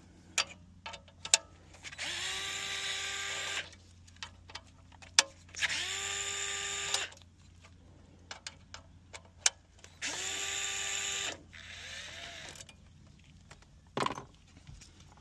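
Cordless drill driving out the Torx screws that hold the radio head unit's mounting bracket: three short runs of about a second and a half each, the motor spinning up then holding speed, with small clicks and knocks of screws and metal between runs.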